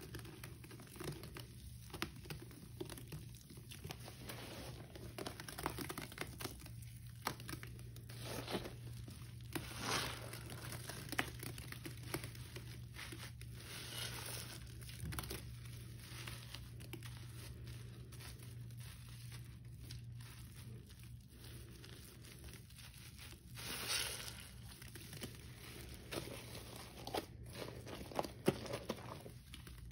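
Natural sponges squeezed and kneaded in thick, foamy Ajax scouring-powder paste, squelching with an irregular crackle of bursting bubbles. Two louder squelches come about ten seconds in and near twenty-four seconds.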